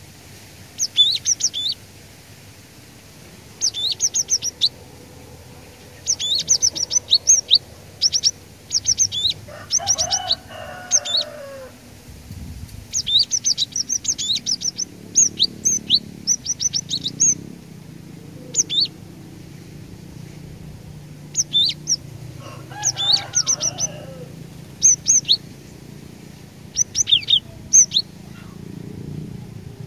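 Cinereous tit (glatik batu) singing in short bursts of rapid, high chirps, one phrase every second or two. A lower, rougher call comes in twice, about ten seconds in and again a little past twenty seconds.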